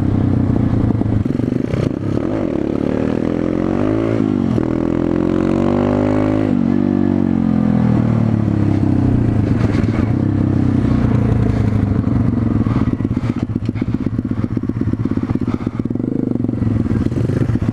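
Pit bike's single-cylinder four-stroke engine under way, revving up twice with a rising pitch and a sudden drop after each, as on upshifts, about three and five seconds in. After that it settles into a steady cruise.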